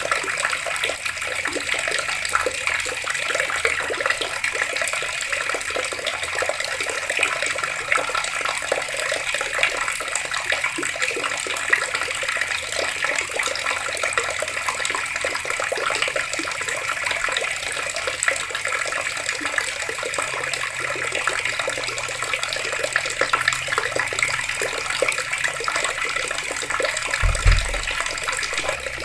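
Water running steadily from taps and splashing down. There is a brief low thump near the end.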